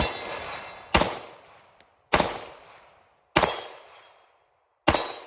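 Five .45 ACP pistol shots from a Glock 30, spaced about a second to a second and a half apart, each trailing off in a fading echo. The handloaded rounds feed and cycle without a stoppage.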